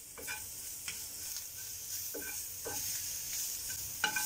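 Chicken masala sizzling in a frying pan while a metal spatula stirs and scrapes it, with a few separate scrapes against the pan, the sharpest near the end.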